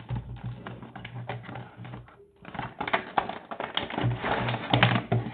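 Cardboard packaging handled by hand: a box flap flexing and a die-cut cardboard insert sliding out, a dense run of crackles, scrapes and clicks with a brief pause about two seconds in.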